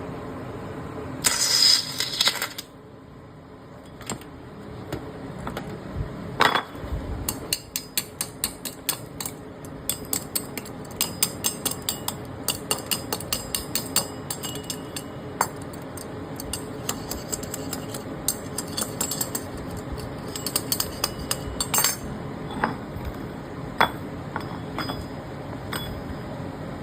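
Stud welding machine welding studs one after another: a string of sharp metallic snaps, about two a second through the middle, over a steady machine hum, with a harsh hiss about a second long near the start.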